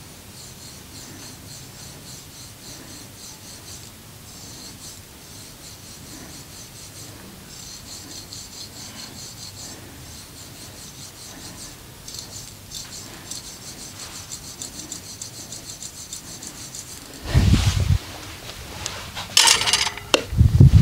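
Hands rubbing briskly over skin in a massage, quick rhythmic strokes in runs of a few seconds with short pauses between. Near the end come a loud low thump and then a cluster of louder knocks.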